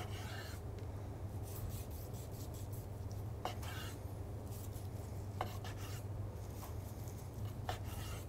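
Chef's knife slicing through a roast leg of lamb on a wooden cutting board: a series of soft scraping strokes, with a few light clicks as the blade touches the board. A steady low hum runs underneath.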